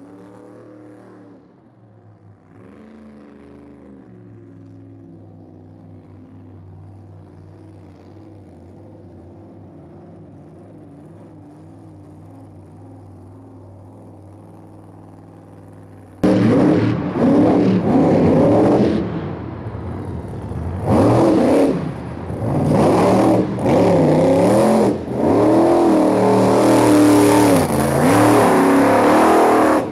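Monster truck engines. First a steady low engine rumble, then about halfway through a sudden loud burst of hard revving that rises and falls again and again as the trucks race close past.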